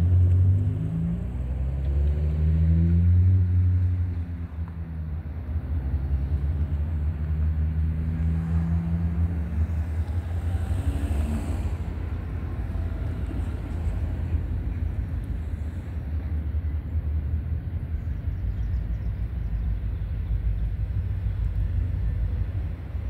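Low rumble of an approaching freight train's diesel locomotive. The engine note rises and falls over the first ten seconds, then settles into a steady low rumble.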